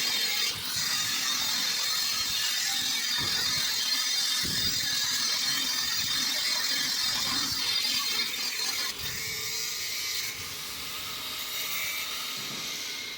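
Abrasive cut-off disc cutting through square steel stock, a steady grinding hiss that eases somewhat about ten seconds in and fades out at the end as the cut finishes.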